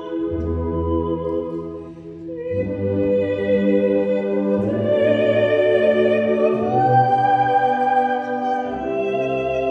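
Symphonic wind band and male choir performing slow sustained chords. The music thins briefly about two seconds in, then swells to its loudest before easing slightly near the end.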